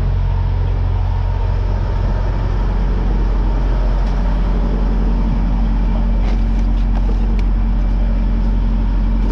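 Semi-truck diesel engine idling with a steady low hum, with a few light clicks and knocks about six to seven seconds in.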